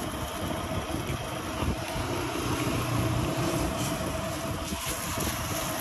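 Steady road traffic noise, with a vehicle engine running a little louder around the middle.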